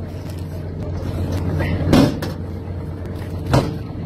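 Steady low hum of the fishing vessel's machinery, with two knocks about a second and a half apart, the louder one about two seconds in.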